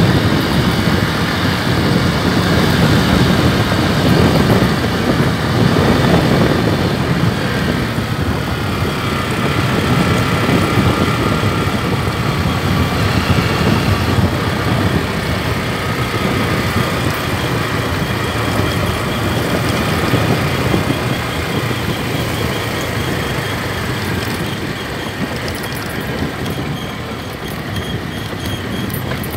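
Honda motorcycle engine running steadily while the bike rides along a dirt road, under a continuous rush of wind and road noise; it eases slightly near the end.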